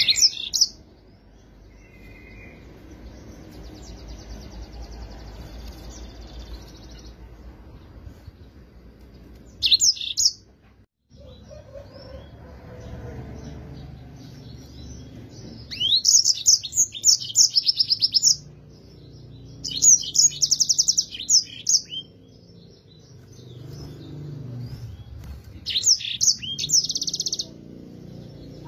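Yellow-fronted canary (Mozambique canary) singing in about five bursts of high, fast trilling phrases, the longest lasting about two seconds, with pauses of several seconds between them.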